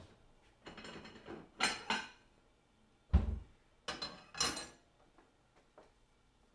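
Kitchen handling noises: a ceramic dinner plate clattering as it is handled, a dull thump about three seconds in, then the plate scraping and knocking as it is set down on the gas hob's metal pan support.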